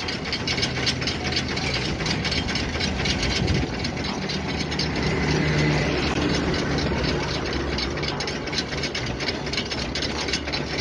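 Tata truck's diesel engine idling steadily close by.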